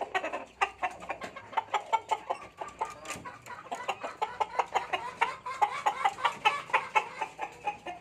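Chickens clucking: a dense run of short, quick calls overlapping with one another.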